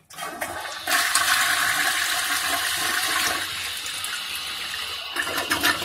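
Toilet flushing: water rushes loudly into the bowl and swirls down the drain, starting about a second in. After a couple of seconds it settles to a quieter steady rush, with a few brief louder gushes near the end.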